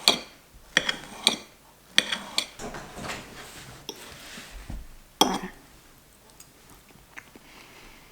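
Sharp clinks of utensils and crockery in a small kitchen: a quick run of about five in the first two and a half seconds, then a louder one about five seconds in.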